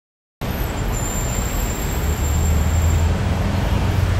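Street traffic noise: a steady low rumble of motor vehicles on the road, swelling a little about two seconds in, with a faint high whine for a couple of seconds.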